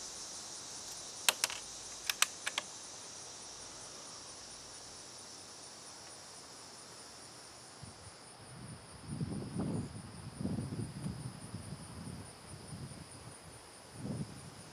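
Bolt of a CZ 452 American bolt-action .22 rimfire rifle being worked, a handful of sharp metal clicks in the first three seconds as the spent case is ejected and the next round chambered. Behind it, a steady high chirring of insects, with soft low rumbles in the second half.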